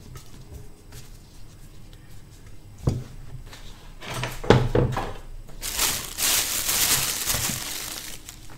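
Kitchen handling noise: a knock, then a few clattering knocks, then about two seconds of loud crinkling from a plastic bag being handled.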